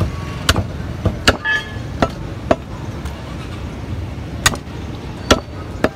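Sharp, irregular chops of a butcher's cleaver striking a wooden chopping block, about eight in six seconds, over a steady rumble of street traffic.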